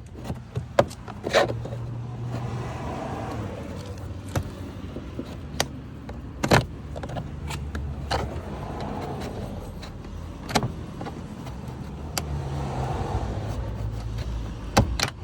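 Sharp clicks and knocks of a pry tool popping the plastic retaining clips of a car door panel, about nine in all, the loudest about six and a half seconds in. Under them is the steady sound of vehicles, swelling and fading as they pass.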